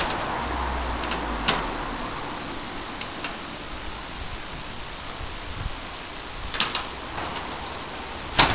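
Steady background hiss with a few sharp clicks or knocks: one about a second and a half in, two around three seconds, a short cluster near six and a half seconds, and the loudest just before the end. A brief low rumble runs underneath early on.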